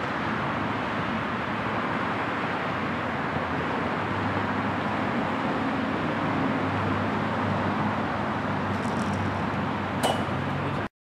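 Steady outdoor background noise with a low hum in the middle stretch. About ten seconds in comes a single sharp clack with a brief ringing tone, and then the sound cuts off suddenly.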